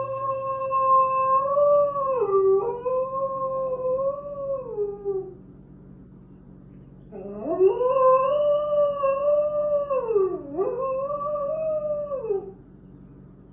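A dog howling: one long howl that trails off about five seconds in, then a second long howl from about seven seconds in until near the end. Each holds a steady pitch with brief downward dips.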